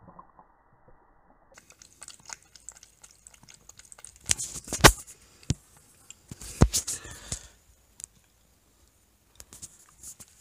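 A cat lapping water from a stainless steel bowl: irregular sharp clicks and small splashes, with louder clusters about four and six and a half seconds in.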